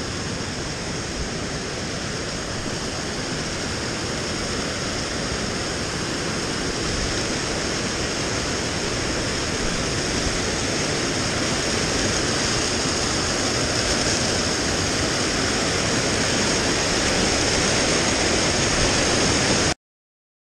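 Mountain stream cascading over rocks: a steady, loud rush of water that grows slightly louder, then cuts off abruptly near the end.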